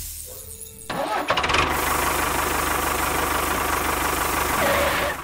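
Small motor of a homemade miniature tractor running. It drops away briefly, starts up again about a second in, and then runs steadily.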